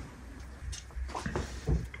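A few faint knocks and rustles of objects being handled, with light taps from about halfway through to near the end.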